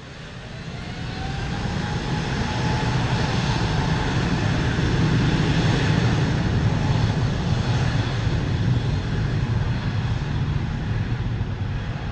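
Airliner engines growing loud over the first few seconds, with a faint whine rising in pitch, then a loud steady engine noise that eases slightly near the end.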